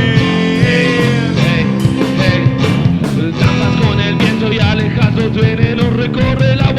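Live rock band playing an instrumental passage, with electric guitar, bass and drums.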